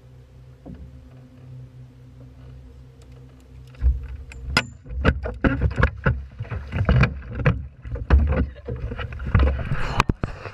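A low steady hum, then from about four seconds in a rapid, irregular run of loud knocks and thumps against the boat and the camera.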